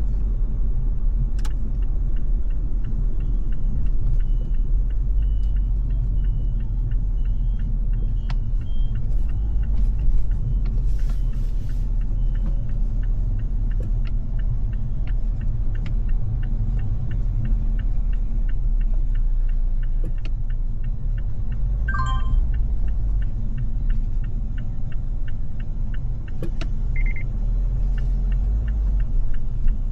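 Car driving in city traffic: a steady low rumble of engine and road noise. A run of faint regular ticks sounds in the first ten seconds, and a brief falling tone comes a little past twenty seconds.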